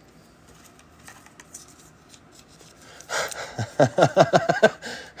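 Faint clicks of trading cards being handled, then about three seconds in a breathy exhale runs into a short laugh, a quick run of pitched 'ha' pulses.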